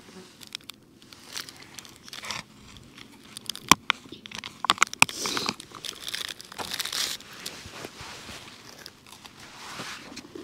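Crinkling and rustling of a silver foil-type biscuit packet being handled, in irregular scattered bursts with a few sharp crackles.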